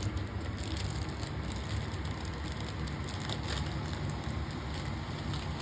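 Faint rustling and a few light clicks of a toy being worked out of its plastic packaging, over a steady low background hum.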